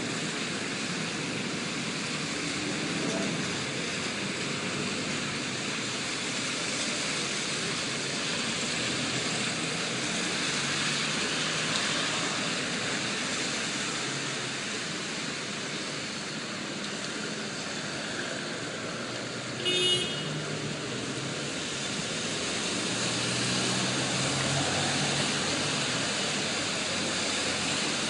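City traffic on rain-wet streets: a steady hiss of rain and tyres on wet road with passing cars, and a short horn toot about twenty seconds in.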